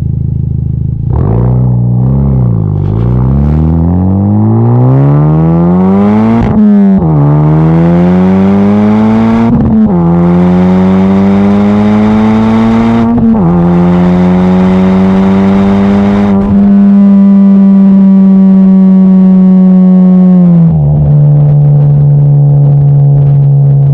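Honda Civic Type R FK8's turbocharged four-cylinder engine through a J's Racing 70RS cat-back exhaust with an RV6 front pipe, heard inside the cabin. The car accelerates, its engine note climbing and dropping at three upshifts. It then holds a steady cruise, and the pitch drops once more near the end.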